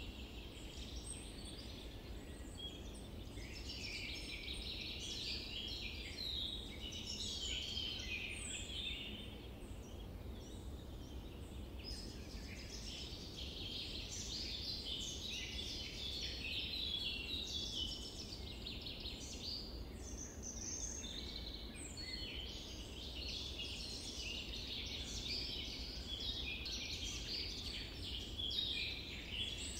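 A continuous chorus of many birds chirping and singing, with short overlapping calls, over a faint low background rumble.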